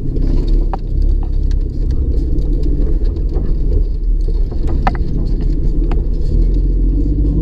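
Jeep driving slowly over a bumpy dirt road, heard from inside the cab: a steady low rumble of engine and tyres, with a few sharp rattles and clicks from the cab as it jolts.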